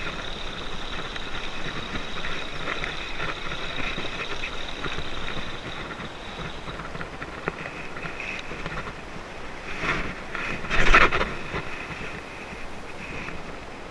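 Steady wind noise on the microphone with water around a paddleboard at sea. About eleven seconds in comes a brief loud rushing swish as a metal jig is cast out on a spinning rod.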